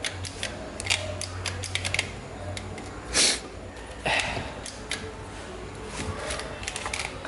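Cordless drill boring a 10 mm metal-drilling bit into wood, running in short spurts with a run of clicks and two louder bursts about three and four seconds in. It keeps catching and stopping because its battery doesn't fit properly.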